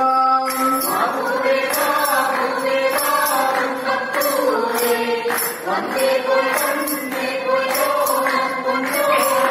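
A group singing a Malayalam Onam folk song (onappattu), with percussion keeping a steady beat of about two strokes a second.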